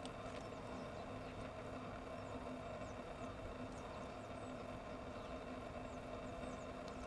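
Steady low background hum with faint, brief high chirps now and then.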